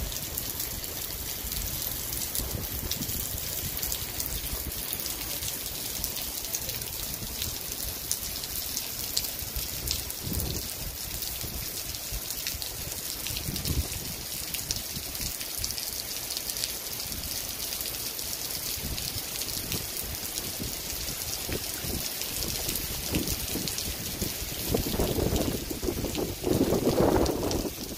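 Rain falling steadily on wet asphalt pavement, an even hiss of drops. Near the end a louder rushing noise swells for a couple of seconds.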